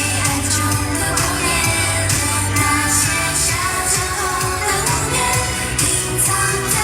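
Chinese pop song performed live by a female idol group: voices singing over a backing track with a steady drum and cymbal beat and bass.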